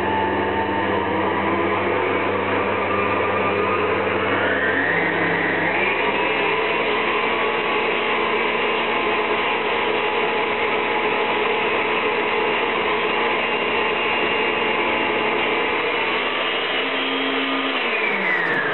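Electric stand mixer motor running as it beats cake batter, a steady whine. The pitch steps up about five seconds in as the speed is turned up, holds, then winds down near the end.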